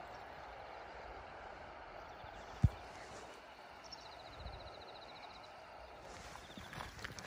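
Quiet outdoor ambience in a grassy field: a steady faint hiss, with one sharp low thump about two and a half seconds in and a faint rapid high-pitched pulsing trill about four seconds in.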